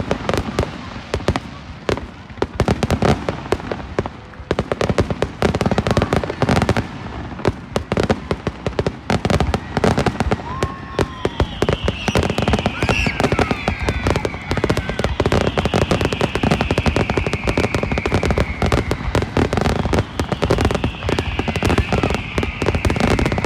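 Fireworks finale: a dense, rapid barrage of bangs and crackling. About halfway through, long whistles come in, each falling slowly in pitch over several seconds.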